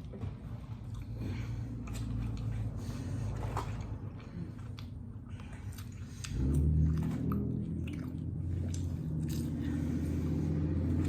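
Chewing and biting of burgers and fries, with many short mouth clicks. A low hum runs underneath and gets louder about six seconds in.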